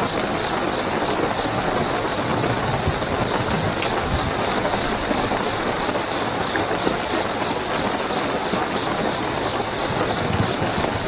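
Heavy, steady rainfall with a continuous high-pitched cricket trill over it.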